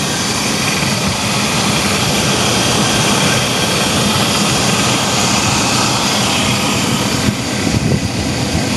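Chevy Astro van's engine running steadily with a loud, even rush of noise, circulating BlueDevil head gasket sealer through the cooling system with the radiator cap on.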